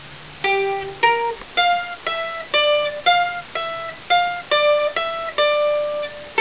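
Mandolin played solo: a slow melody of single picked notes, about two a second, starting about half a second in.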